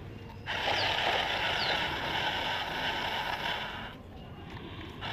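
Small electric motor and plastic gearbox of a wired-remote toy RC excavator, running with a buzzing whir that starts abruptly about half a second in and stops after about three and a half seconds.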